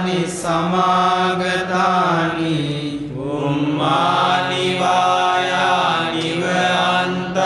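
Buddhist pirith chanting in Pali: steady, drawn-out recitation on long held notes, with a short dip about three seconds in.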